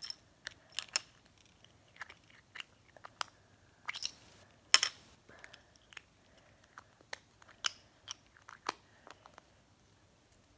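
Irregular small clicks and taps of small plastic toy pieces being handled by hand, with short gaps between them and one sharper click near the middle.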